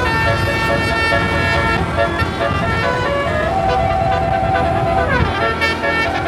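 A bus's 36-note telolet basuri musical air horn playing a slow tune of held notes that step between pitches, with one falling slide about five seconds in.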